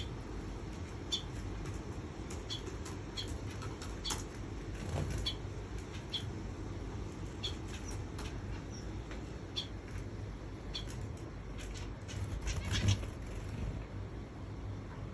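Small finches giving short, high single chirps every second or so. Twice the birds splash and flutter their wings in a shallow water dish while bathing, the louder burst near the end.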